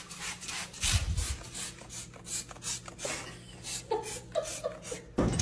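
Repeated dry scraping or rasping strokes, several a second, over a low steady hum.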